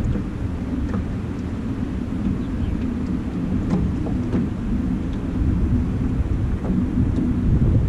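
Strong wind buffeting the microphone on an open jon boat: a steady low rumble.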